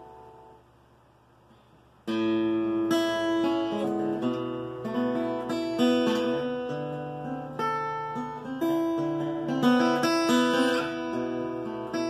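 Acoustic guitar: a chord dies away, then after a short pause, about two seconds in, strummed and picked chords start and run on, changing every second or so.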